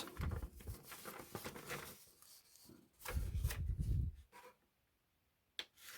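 Paper and packaging being handled: irregular rustling with light clicks and knocks as printed parts are set down and picked up, a dull handling bump a little past the middle, then a single click near the end.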